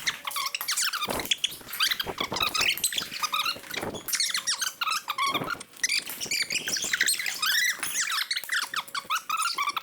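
Rapid, high-pitched squeaking, many short squeaks overlapping one another, with a few sharp knocks mixed in.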